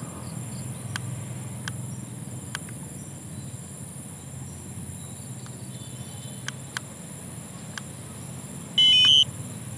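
DJI Spark remote controller powering on: a short run of electronic beeps near the end, over a steady background hum with a few faint clicks.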